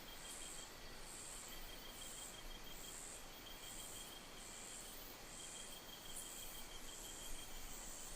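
Insects calling in the forest: a faint, high chirp repeating evenly about every three-quarters of a second over a thin, steady high trill.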